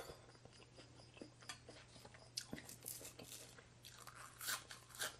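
Close-miked chewing of food: soft crisp crunches and wet mouth clicks, with a few louder crunches about four to five seconds in.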